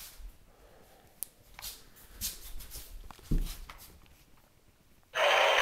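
Plush toys being handled, with light rustles and knocks and a thump about three seconds in; near the end a loud, steady noise starts abruptly as the battery-operated plush toy is set going.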